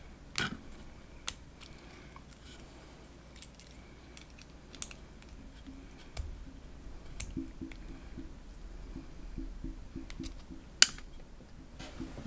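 Small metal clicks and taps of a padlock being taken apart by hand, with a run of quick light ticks in the middle and a sharper click near the end.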